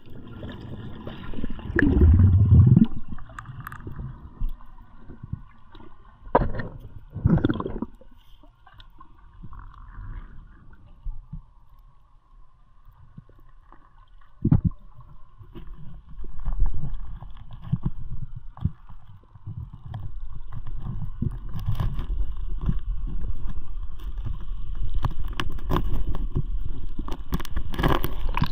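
Water sound recorded underwater: a low rumble and gurgling, with a loud surge about two seconds in and a few short knocks or bubble bursts. It turns into a steadier rushing noise for the last third.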